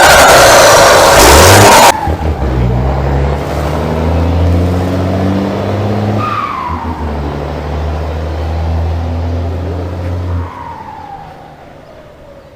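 Ford diesel truck engine revving, its turbocharger fitted with a comb ('pente') in the intake and whistling loudly. The whistle falls in pitch as the turbo winds down after each rev, very loud for the first two seconds, then again about six seconds in and near the end, as the engine dies away.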